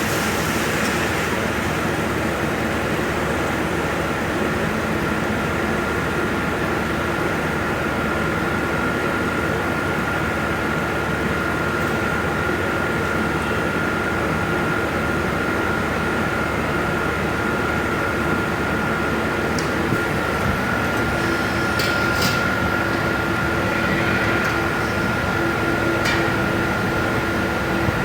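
Steady drone of running dairy machinery, with a constant high whine over it and no change in pace.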